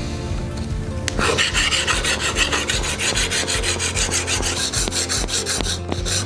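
Steel plane iron from a Bailey No. 5 rubbed in rapid back-and-forth strokes across an extra-coarse diamond sharpening stone, a steady scratchy rasp that grows louder about a second in. The iron is tilted on a thin ruler so that the abrasive grinds a slight back bevel at the very edge.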